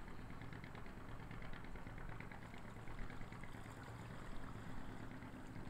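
An engine idling with a low, steady hum, a faint crackle running above it.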